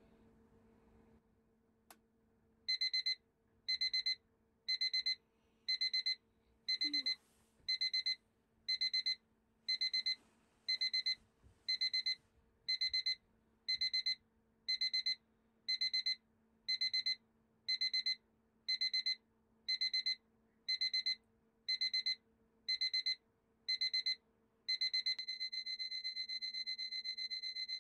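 Electronic alarm beeping, a high double-pitched beep about once a second for some twenty seconds, then changing to a continuous tone.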